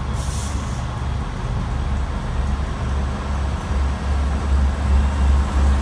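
Class 158 diesel multiple unit pulling away under power, its diesel engine a low drone that grows louder and pulses as the train draws near. A short hiss right at the start.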